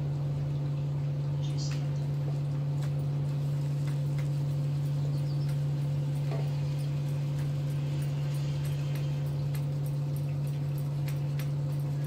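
Flour being sifted through a round hand sieve, with soft swishing and a run of light, evenly spaced taps, mostly in the second half. A steady low hum underlies it and is the loudest sound throughout.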